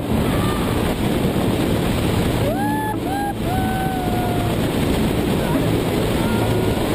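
Wind rushing over the microphone of a pole-mounted camera in paraglider flight, a loud steady buffeting. About two and a half seconds in, a few short high tones rise and then hold for under a second each.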